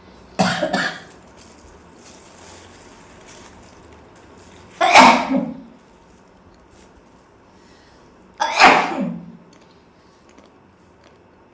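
A woman sneezing three times, about four seconds apart, the first with a double burst.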